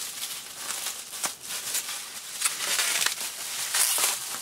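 Bubble wrap crinkling and crackling irregularly as it is handled and peeled off a wrapped figure.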